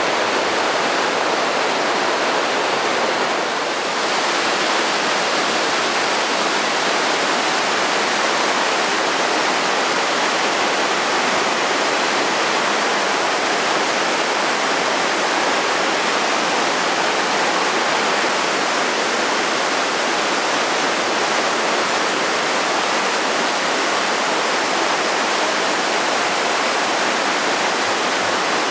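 Waterfall pouring steadily: a loud, even rush of falling water with a brief slight dip about four seconds in.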